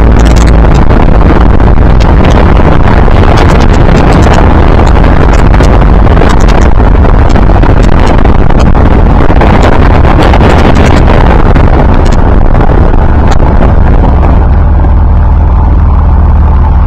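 1929 Ford Model A speedster's four-cylinder engine running on the road, buried under heavy wind buffeting on the microphone of the open car. The recording is loud and distorted. The wind noise eases a little near the end as the car slows.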